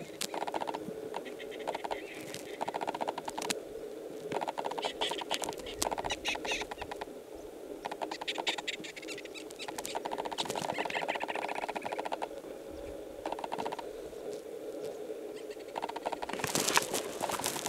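Dry grass crackling and rustling in repeated bursts as a Gunnison's prairie dog bites and tears off mouthfuls of it for nesting material.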